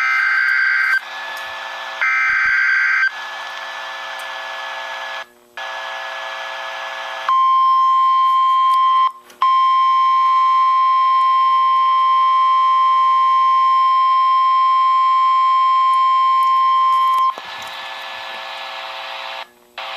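Emergency Alert System header: two short shrill bursts of digital data tones over a hissing broadcast background, then, about seven seconds in, a loud steady single-pitch weather radio alert tone held for about ten seconds with a brief break near its start, the attention signal that opens a severe thunderstorm warning.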